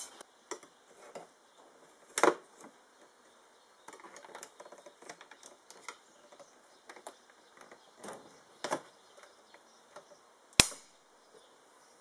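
Scattered clicks and knocks of BMW 525 dashboard trim pieces and their clips being handled and pried off, with a few louder knocks and one sharp snap near the end, the loudest.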